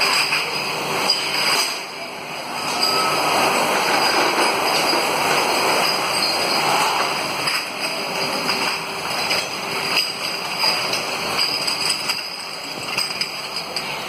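Glass bottle washing machine running: a steady mechanical rattle and wash of noise, with many small clicks and knocks through it.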